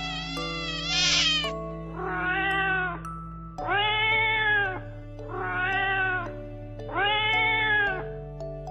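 A cat meowing, a series of long calls that each rise and then fall in pitch, about one every one and a half seconds. Background music with sustained held notes plays underneath.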